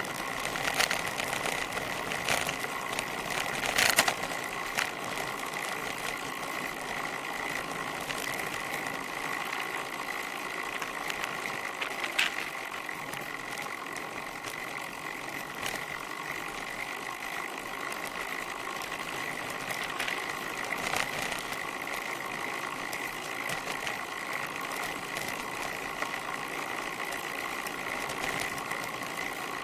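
Road bicycle rolling fast downhill on a sealed road, picked up by a rear-mounted camera: steady tyre and riding noise with a thin constant tone, and a few sharp knocks from road bumps, the loudest about four seconds in.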